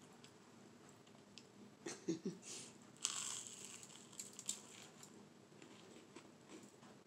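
A bite into crisp buttered and sugared toast: a short, loud crunch about three seconds in, followed by a few crackly crunches and clicks as it is chewed.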